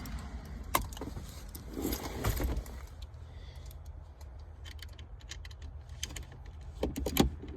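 Metal hand tools clinking and rattling as a ratchet is picked out and handled: a scatter of sharp metallic clicks with short rattles, the loudest clicks near the end.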